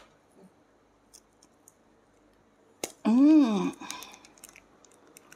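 Small plastic bag of fish sauce crinkling and clicking faintly as fingers pick at its tight knot. About three seconds in, a person's voice makes one loud drawn-out sound that rises and then falls in pitch.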